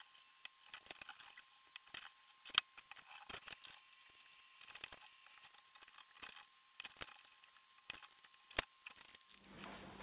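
Faint scattered clicks and taps of a marker pen and layout tools handled against bowling balls while drilling layouts are marked out, with two sharper clicks, one a few seconds in and one near the end.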